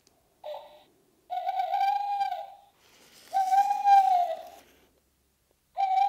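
Recorded tawny owl hooting from a birdsong greeting card's sound chip. A brief note comes first, then two long, slightly arching hoots about a second apart, and a third hoot starts near the end.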